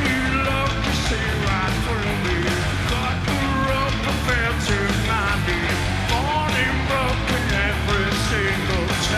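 Rock band playing live: a male singer's vocals over electric guitar and a steady drum beat.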